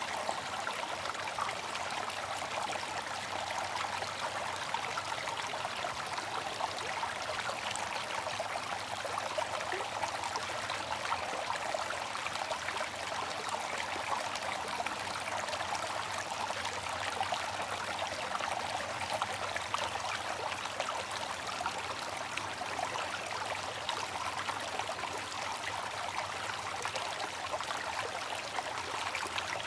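Bamboo water fountain: water pouring and splashing steadily.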